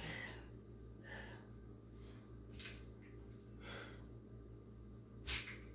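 A person breathing hard while exercising: five short, noisy breaths about a second apart, over a faint steady low hum.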